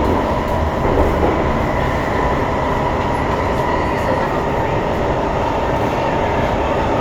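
Cabin noise of a C151 metro train running between stations: a loud, steady rumble with a steady high whine over it.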